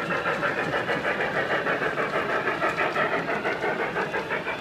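Model steam train running past on its layout, with a quick, even rhythmic beat of about five pulses a second.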